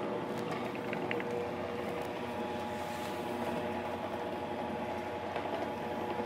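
Electric dough sheeter running steadily, its motor humming with a few constant tones, while a folded sheet of whole-wheat dough is fed between its rollers to laminate it.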